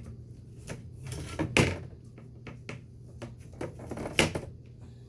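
Irregular clicks, scrapes and knocks as the old rubber spline is pulled out of the groove of a window screen frame, with two louder knocks of the frame about a second and a half and four seconds in.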